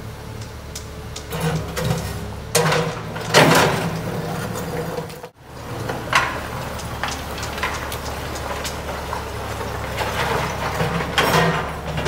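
JCB 3CX backhoe loader's diesel engine running steadily while it holds a heavy gate panel on its arm, with bursts of louder rushing noise about three seconds in and near the end; the sound drops out for a moment about five seconds in.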